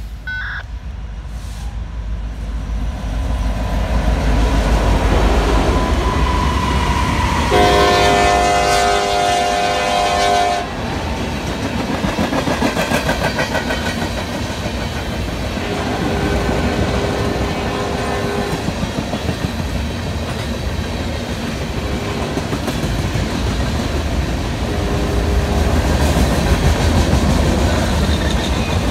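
Norfolk Southern freight train: the locomotive's rumble grows as it approaches, its air horn sounds one chord for about three seconds and cuts off sharply. Then loaded tank cars and gondolas roll past with the clickety-clack of wheels over the rail joints.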